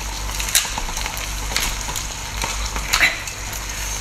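Wet tearing and squelching as a large piece of cooked seafood is pulled apart by hand, a crackly sizzle-like noise with sharp wet smacks about half a second in, around a second and a half in, and near three seconds in.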